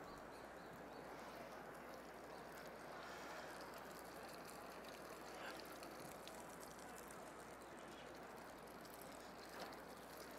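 Faint, steady sizzle of food frying in a pan on the stove, with one small clink near the end.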